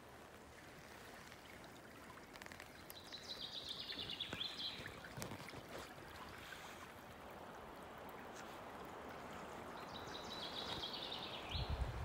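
A small songbird sings two short phrases, each a quick run of repeated notes stepping down in pitch, about three seconds in and again near the end. Under them runs the steady rush of a river in spring flood, its water spreading through the forest.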